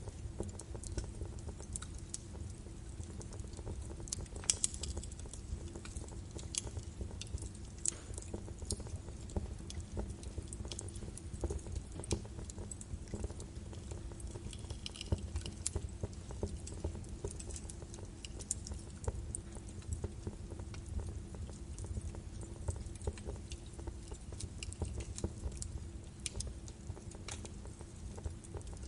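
Birch logs burning in a fireplace: a steady low rumble of the flames with dense, irregular crackling and sharp pops.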